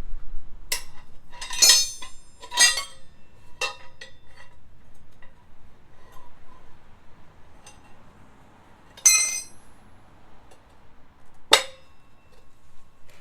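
Metal hand tools clinking against each other and against metal parts, each clink ringing briefly. There are several in the first four seconds, a louder one about nine seconds in, and a sharp knock near the end.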